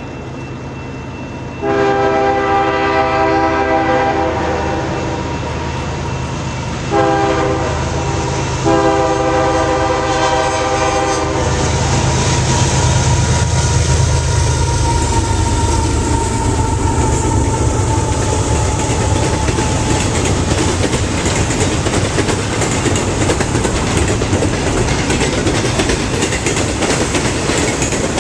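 Canadian Pacific freight train's diesel locomotive horn sounding three blasts, long, short and long, as the train approaches. The locomotives then rumble past, followed by the steady rolling clatter of double-stack container cars' wheels on the rails.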